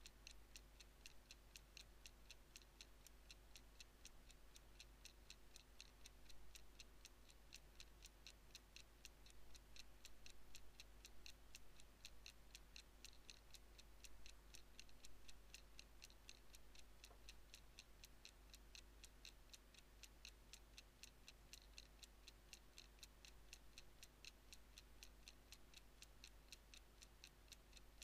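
Uncased Ingersoll pocket watch movement ticking: faint, rapid and even, several ticks a second, over a low steady hum.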